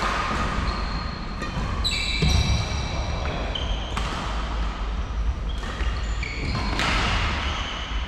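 Badminton rackets striking shuttlecocks in several sharp hits, mixed with short high squeaks of court shoes on the wooden floor.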